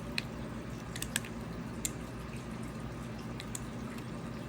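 A few sharp little drips and clicks, about five, scattered irregularly over a steady low hum and faint water background. They are typical of water dripping and small plastic bottles being handled.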